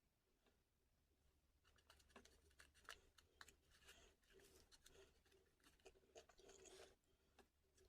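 Faint close-up handling of food: small crackles and scratches begin about one and a half seconds in and come thickest just before the end, over a faint steady hum.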